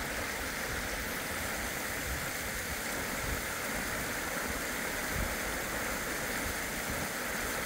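A valley river rushing steadily: an even, unbroken hiss of flowing water.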